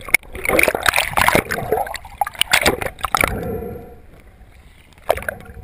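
Water splashing and gurgling around an action camera that dips under the surface while a swimmer thrashes in panic. Dense, irregular splashes and knocks for about three seconds, then calmer, with another splash near the end.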